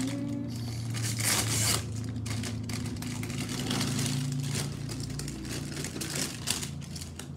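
Plastic packaging crinkling and tearing as a pop-it fidget toy is unwrapped, with a steady low hum underneath.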